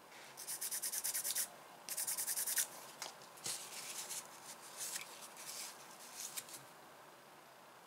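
Cotton pad rubbed over the steel jaw of an adjustable wrench, a dry scratchy rubbing. It starts with two quick runs of brisk back-and-forth strokes, about ten a second, then slows to irregular wipes that stop a little over six seconds in.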